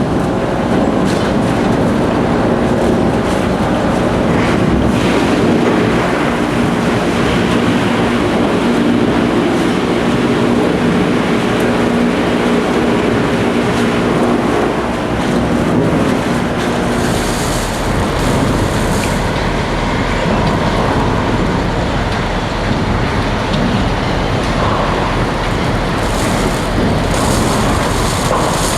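Wood chipper running with a steady machine drone whose pitch pattern shifts about halfway through, with bursts of hiss about two-thirds of the way in and again near the end.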